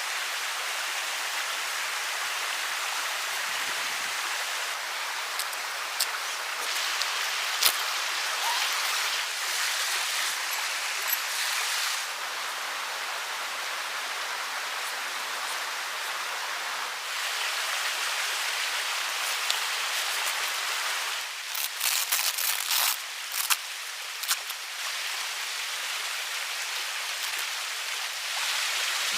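Steady hiss of falling rain, with scattered sharp ticks and taps and a cluster of them about 21 to 25 seconds in.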